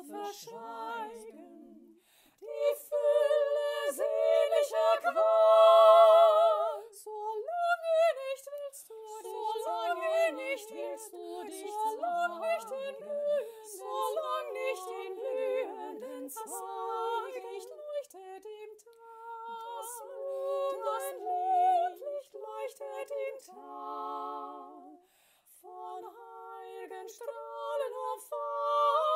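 A cappella singing by one woman's voice layered in several harmony parts, with the alto part left out. The held notes have a clear vibrato, and the singing breaks off briefly near the end before going on.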